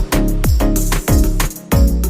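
Background music with a steady electronic beat: a punchy bass drum about twice a second over a sustained bass line.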